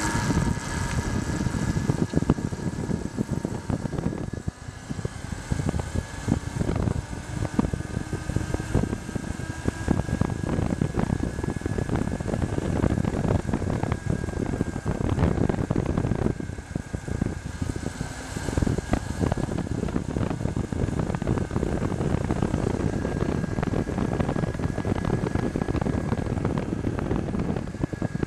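Wind buffeting the microphone on a moving electric motorcycle, over a steady faint whine from its Briggs & Stratton E-Tek electric motor drive running on 24 volts.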